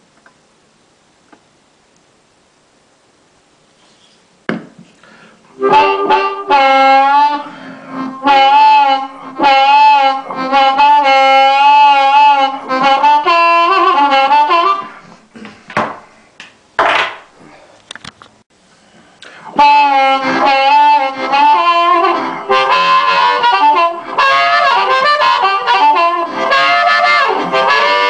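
Amplified blues harmonica, a Seydel 1847 in C, played through a microphone without its bicycle-tube rubber sleeve into a VHT 6-watt tube amp with a 10-inch speaker. After a handling click about four seconds in, the playing starts: loud phrases of held, wavering notes with short breaks, and a longer pause with a couple of sharp clicks around the middle.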